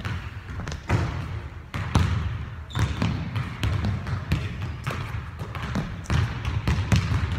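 Basketballs dribbled on a hardwood gym floor: irregular, overlapping bounces from several balls, echoing in a large gym.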